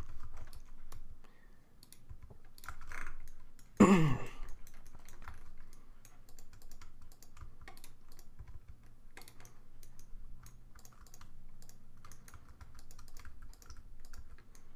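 Computer keyboard keys and mouse buttons clicking in an irregular patter, the hotkey-and-click work of editing a 3D mesh. A short voiced sound from a person breaks in about four seconds in.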